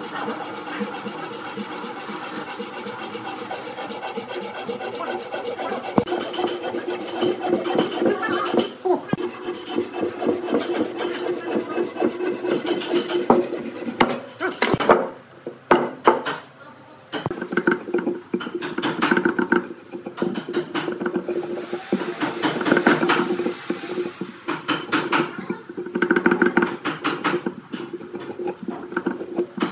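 Hand saw cutting through a round tree-branch log in quick back-and-forth strokes, with a short pause about halfway through.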